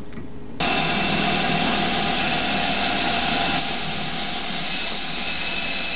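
Small CNC lathe turning free-cutting steel with a carbide insert, its spray mist coolant giving a loud, steady hiss under the hum of the spindle. The hiss starts abruptly about half a second in and turns brighter a little past the middle.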